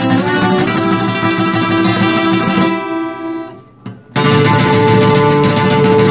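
A docerola (Mexican twelve-string guitar) strummed in full chords. About two and a half seconds in, the strumming dies away into a short pause broken by a single stroke. Then a loud chord comes in sharply and rings on.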